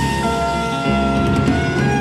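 Background music: sustained instrumental chords that change every half second or so.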